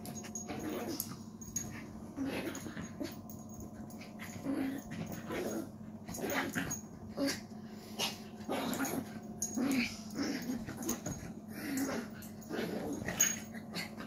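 Small dog growling and snuffling in play as she shakes and drags a plush teddy toy across carpet, in short irregular bursts.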